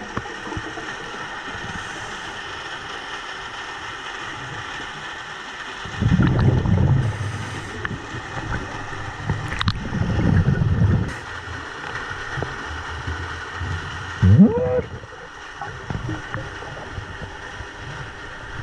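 Scuba diver's exhaled breath bubbling out of the regulator underwater, two low gurgling bursts about six and ten seconds in over a steady hiss. A short rising tone comes near the end.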